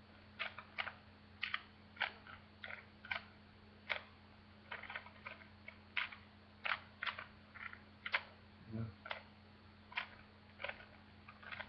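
Plastic speed cube being turned by hand, its layers clicking in quick, irregular clacks, often two or three close together, over a steady low hum.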